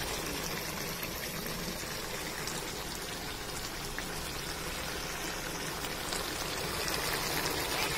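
Finished chicken curry simmering in a steel kadhai on the stove: a steady bubbling and sizzling hiss.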